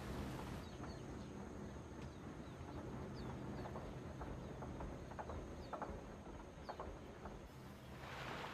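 Jungle riverside ambience: scattered short bird chirps and calls over a steady high-pitched drone and low rumble, with a rush of noise swelling near the end.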